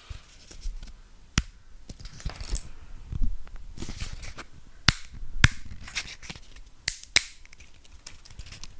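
Dry lasagna pasta sheets being handled and snapped: scattered sharp cracks, several of them loud, among lighter crackling, used as foley for bones breaking.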